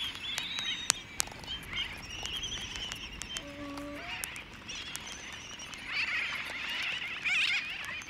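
Laysan albatross chick begging at its parent's bill amid a calling albatross colony: wavering high chattering calls throughout, scattered sharp clicks, and one short low call a little past three seconds in.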